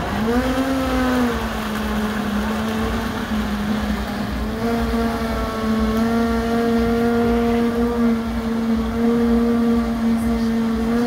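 Countertop blender motor blending yellow fruit juice. It starts and winds up quickly, dips slightly about a second in, then runs at a steady whine while a tamper is worked through the lid.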